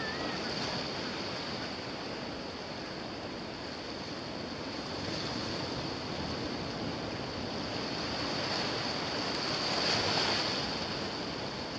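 Surf washing steadily on a rocky shore, swelling to its loudest about ten seconds in.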